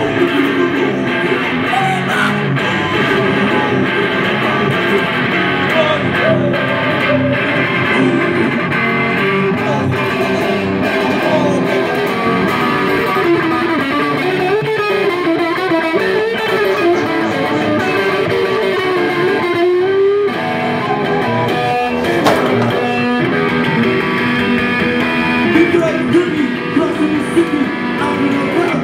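Loud live music led by an electric guitar, played on without a break.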